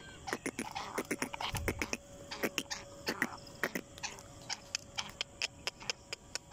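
Quick, irregular sharp clicks, several a second and sometimes in pairs, made by a person's hand at the cage of a black francolin.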